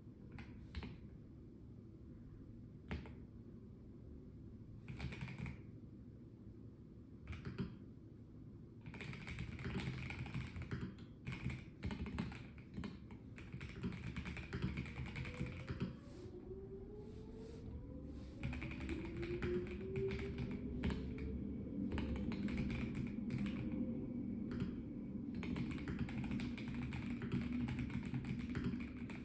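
Typing on a Melgeek Mojo84 plastic mechanical keyboard: a few single keystrokes at first, then bursts of fast typing with short pauses, over a steady low background rumble.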